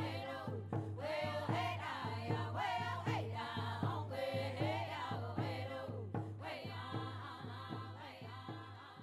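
Background music: voices singing together over a steady beat of about two strokes a second and a low held drone, slowly fading toward the end.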